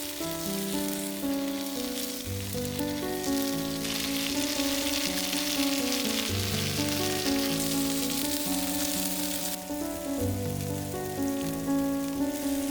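Pork skewers sizzling on a hot grill, the sizzle growing louder for several seconds in the middle, over a soft melodic music track.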